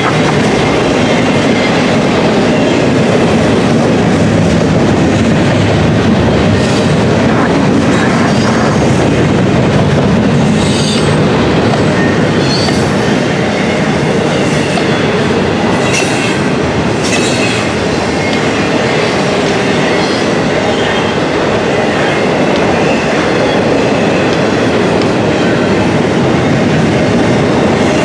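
Double-stack intermodal container cars of a freight train rolling past: a steady, loud rumble of steel wheels on rail with clickety-clack over rail joints, and a few brief high wheel squeals about a third and over halfway through.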